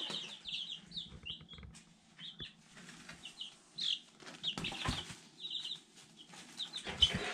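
Week-old chicks peeping steadily in short, high chirps. Twice, a chick's wings flap and rustle against the brooder, once about halfway through and again, louder, near the end.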